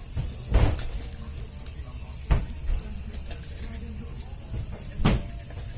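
Climbing perch frying in a pan of hot oil, a steady sizzle, with three short knocks about half a second, two and a third, and five seconds in.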